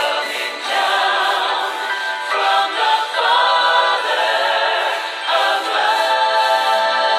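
Background music: a choir singing a gospel song in harmony.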